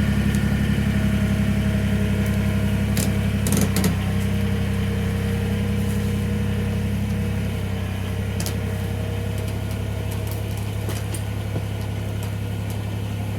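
Kubota BX23S compact tractor's three-cylinder diesel running steadily at raised throttle while dragging a log on a rope, with a few knocks about three to four seconds in.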